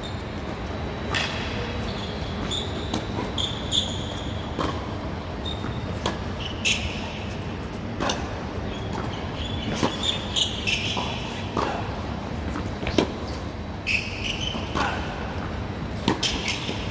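Tennis rally on a hard court: sharp pops of racket strings hitting the ball and the ball bouncing, at irregular intervals of about a second, with short high squeaks of tennis shoes on the court surface between the hits.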